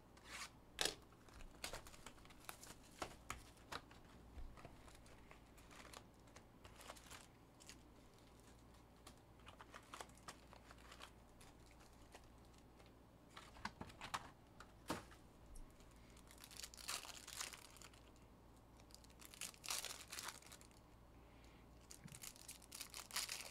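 Faint crinkling of foil trading-card packs being handled and stacked, with scattered light clicks and taps from a cardboard hobby box being opened; the crinkling comes in denser bursts in the second half.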